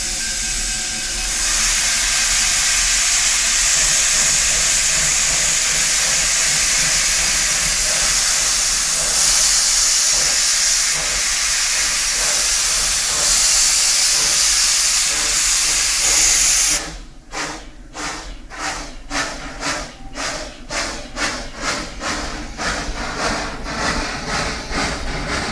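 Steam locomotive No. 119 standing and venting a loud steady hiss of steam from its cylinders, which cuts off about 17 seconds in. The engine then starts away, its exhaust chuffing about twice a second and quickening as the train picks up speed.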